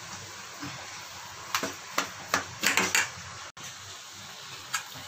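Steel spoon stirring a rice-and-spice mash in a steel bowl: a quick run of short scrapes and clinks of spoon on bowl about halfway through and one more near the end, over a steady hiss.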